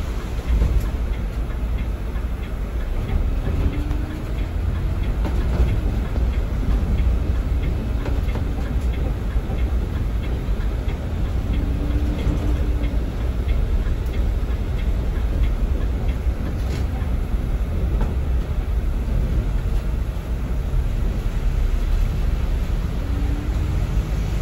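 Steady low rumble of road and engine noise inside the cab of a large vehicle, apparently a bus, driving on wet roads in the rain. A faint hum rises and fades a few times.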